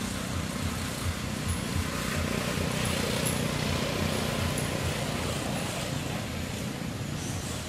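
Outdoor background rumble that swells for a few seconds in the middle, with a few faint high chirps over it.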